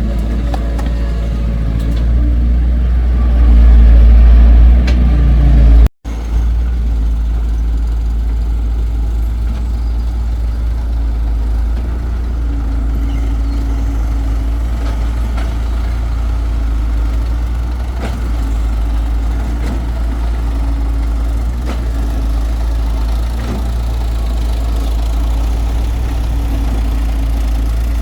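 Excavator's diesel engine running steadily with a deep rumble. It grows louder for a couple of seconds around three to five seconds in, as if working under load, and cuts out for an instant about six seconds in.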